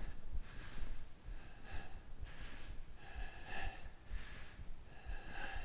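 A man breathing hard in short audible breaths through nose and mouth, a little more than one a second, from the exertion of a set of calf raises.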